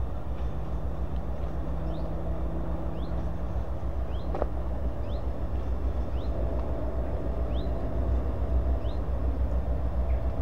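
Diesel locomotive's engine running with a steady low rumble as it approaches slowly, growing a little louder near the end. A bird chirps repeatedly over it, short rising notes about once a second.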